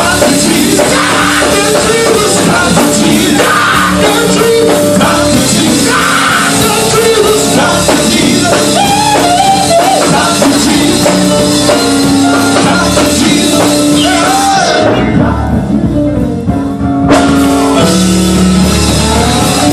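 Loud live gospel band music with singing, drums and guitar. About fifteen seconds in, the high end and cymbals drop out for a couple of seconds, leaving mostly low notes, then the full band comes back in.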